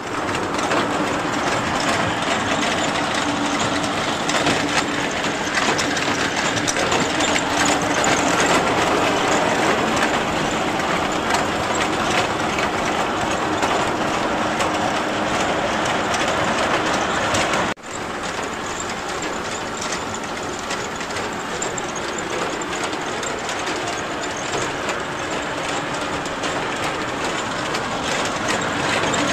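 Water-well drilling rig's engine and machinery running steadily and loudly, with a short break about two-thirds of the way through.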